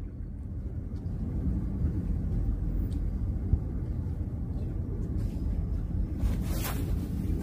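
Steady low outdoor rumble, with one short, sharp swish near the end as a long surf-casting rod is whipped forward in an overhead cast.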